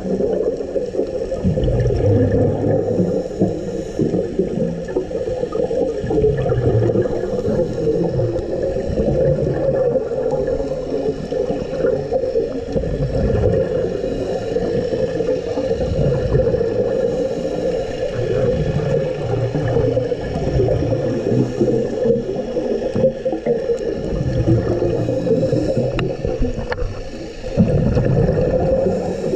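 Muffled underwater noise of a scuba dive: a steady hum with low gurgling swells every few seconds from a diver's exhaled bubbles.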